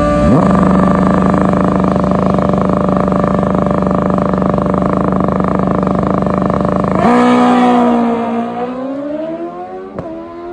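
Two drag-racing motorcycles held at high revs on the starting line, the engine pitch rising quickly just after the start and then holding steady. About seven seconds in they launch, the engine note sweeping up and dropping with each gear shift and fading as the bikes pull away down the track.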